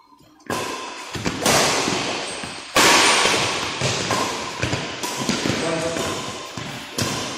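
Badminton rackets hitting the shuttlecock in a doubles rally: several sharp smacks, roughly one a second, each echoing in a large metal-walled hall.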